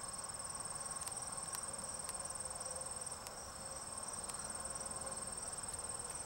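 Insects trilling steadily, a continuous high-pitched chorus, with a few faint ticks.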